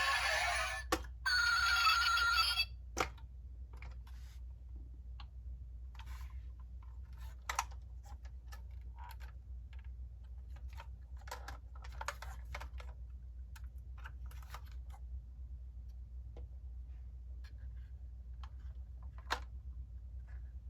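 Music that stops about two and a half seconds in, then scattered small clicks and taps from a die-cast model car and its packaging being handled, a few per second at most.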